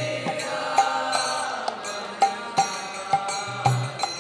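Devotional kirtan accompaniment in the instrumental break between sung lines: a harmonium holding sustained reed chords, with sharp percussion strikes and low drum beats keeping a steady pulse about twice a second.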